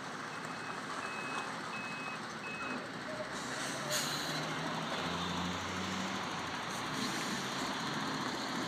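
A heavy truck's reversing alarm beeps steadily, a little under two beeps a second, and stops about three seconds in. A short hiss of air from the truck's brakes follows, then the diesel engine runs on.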